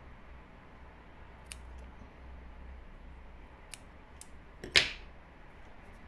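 Small embroidery scissors snipping a strand of yarn with a light click, then a few soft clicks and one sharp knock near the end, the loudest sound.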